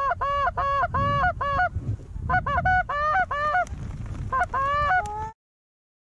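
Canada goose honks and clucks in three quick runs of several calls each, with a low rumble underneath. The calls cut off suddenly about five seconds in.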